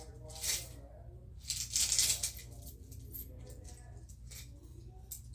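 Coins rattling and clinking as they are handled, with a short burst about half a second in and a longer, louder one around two seconds in.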